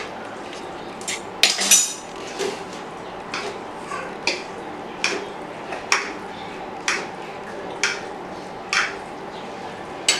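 Metal kitchen utensils clinking and knocking against dishes or cookware, a dozen or so separate strikes at roughly one a second, some with a short bright ring.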